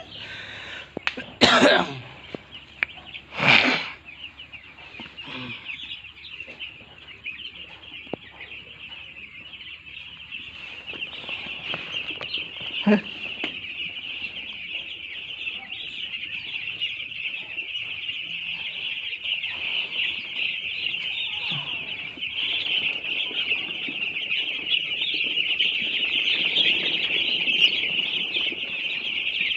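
A flock of young broiler chickens peeping and chirping in a dense, continuous chorus that grows louder as it goes on. Two loud brief noises cut in during the first few seconds.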